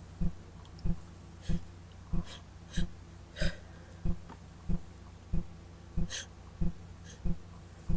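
A woman with a head cold sniffing and taking several short, hitching breaths. Under them runs a steady low thump, repeating about every two-thirds of a second.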